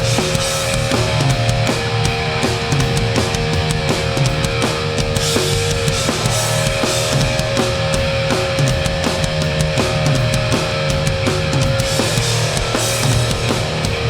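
A hardcore punk band playing live without vocals: distorted electric guitars holding chords, bass, and a drum kit keeping a fast steady beat with crashing cymbals.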